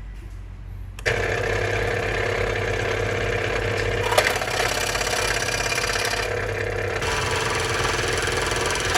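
Small electric motor of a homemade mini workshop tool switching on about a second in and running steadily, with a brief click a few seconds later.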